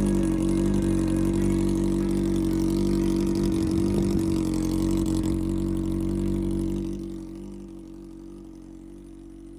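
Yamaha XJR400's air-cooled inline-four running steadily through a Waltz Kikai aftermarket exhaust, at an unchanging pitch, then dropping noticeably in level about seven seconds in.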